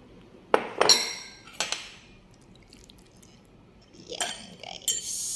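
Ceramic dishes clinking against each other and the countertop: three sharp clinks with a short ring in the first two seconds, then a few softer knocks and a scrape near the end.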